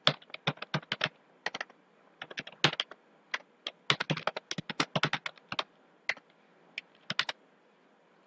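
Typing on a computer keyboard: irregular runs of quick keystrokes with a couple of short pauses.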